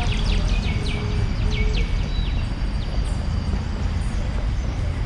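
Small birds chirping in a quick run of short repeated notes, which stop about two and a half seconds in, over a steady low rumble of street or wind noise.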